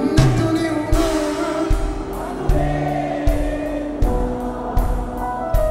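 Live band music, with a steady drum beat under bass, guitar and sung vocals.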